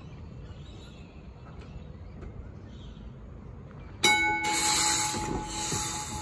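Melbourne W-class tram running slowly with a low rumble. About four seconds in there is a single loud metallic strike whose ringing tones fade over about two seconds, typical of the tram's gong, over a bright hiss.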